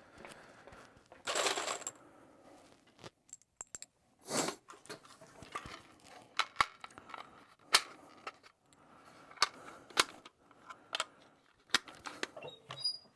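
Irregular sharp clicks and knocks of hands working small metal and plastic gear at a shooting bench, with a short noisy scrape about a second in and another about four seconds in.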